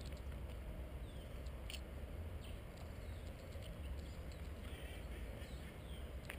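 Birds chirping in the trees: scattered short calls over a steady low rumble, with a couple of sharp clicks.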